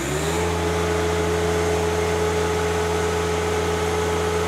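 John Deere 1025R's three-cylinder diesel engine running steadily under hydraulic flow-test load, a steady drone with a clear whine above it. The pitch climbs briefly at the start, then holds.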